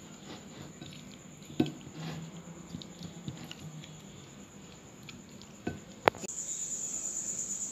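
Wet squishing of hands kneading chicken pieces in a thick spice marinade in a glass bowl. A steady high-pitched pulsing trill runs in the background and grows louder after a sharp click about six seconds in.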